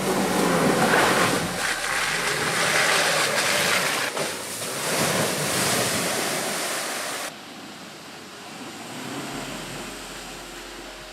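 Loud, even rushing noise that cuts off sharply about seven seconds in, leaving a quieter stretch with a few faint steady tones.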